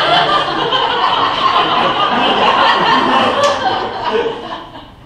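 Audience laughing: a long wave of laughter from many people that dies down near the end.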